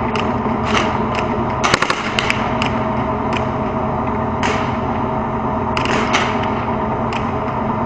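Steady drone of a T-72 tank's V-12 diesel engine, with sharp gunshots cracking irregularly over it, some single and some in quick clusters, a dozen or so in all.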